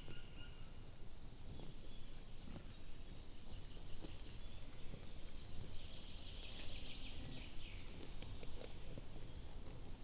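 Woodland ambience over a low rumble, with scattered soft clicks and rustles. From about four and a half seconds in, a small bird gives a fast, high trill lasting about three seconds.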